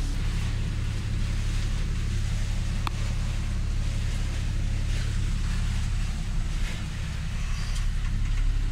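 Steady low engine rumble heard from inside a vehicle cab, mixed with the hiss of heavy rain and wind against the windows, with a few faint ticks.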